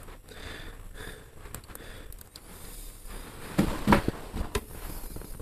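Quiet handling sounds of the front brake caliper's hose fitting bolt being fitted with its sealing washers: scattered light clicks, with a short run of sharper clicks and knocks about four seconds in.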